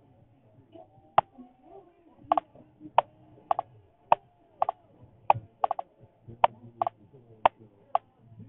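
A series of sharp, irregular clicks, about two a second.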